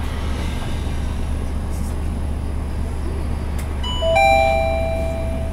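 A bus's on-board two-note 'ding-dong' chime sounds about four seconds in, ringing for a little over a second, over the steady low hum of the Mitsubishi Fuso Aerostar's 6M70 turbo-diesel engine running at low revs in slow traffic.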